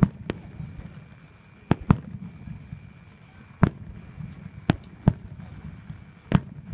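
Aerial fireworks bursting: about eight sharp booms at uneven intervals, some in quick pairs.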